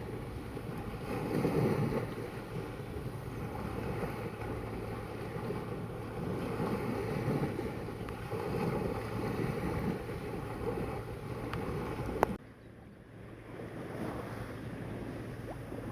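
Sea waves washing, with wind buffeting the microphone in low rumbling surges. About twelve seconds in, a sharp click, and the sound drops suddenly to a quieter wash.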